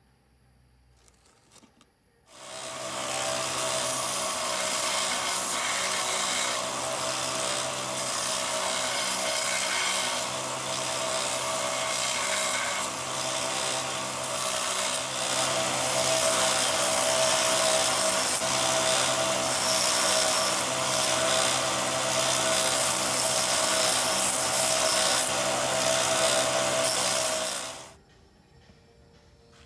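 Bench belt sander running with a steady motor hum and the rasp of copper being ground against the moving belt as the habaki is sanded to shape. It starts about two seconds in and cuts off suddenly near the end.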